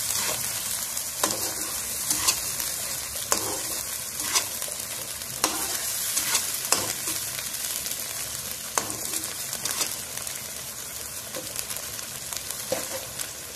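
Sambal chilli paste and sliced petai beans sizzling steadily in a wok, with a spatula scraping and knocking against the pan about once a second, fewer near the end.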